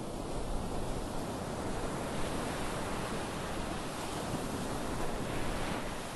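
Ocean surf breaking continuously on a beach: a steady wash of white water that swells slightly as waves break, with a low wind rumble on the microphone underneath.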